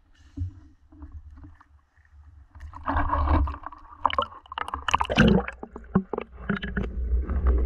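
Water sloshing and splashing at the surface as a diver in a wetsuit moves and sinks into shallow river water, with sharp clicks and knocks among the splashes from about three seconds in. Near the end the sound turns to a muffled low underwater rumble as the camera goes under.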